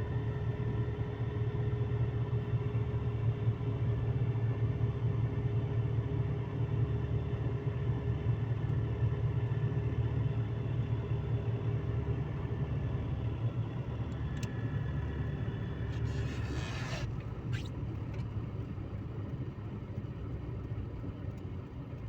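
Steady engine and road rumble heard from inside a moving car, with a hum running throughout. About sixteen seconds in, a brief rushing swell rises and falls away, followed by a couple of short sharp sounds.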